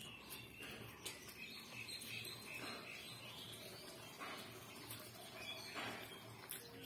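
Quiet mouth sounds of a person slurping and chewing fork-fed noodles, with scattered faint clicks. Faint bird chirps sound in the background.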